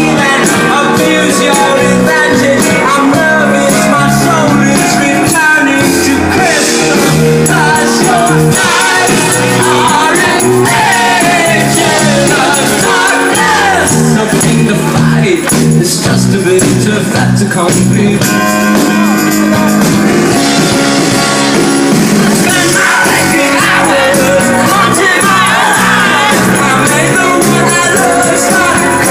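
A rock band playing live, loud and continuous, in a stretch where no sung words come through.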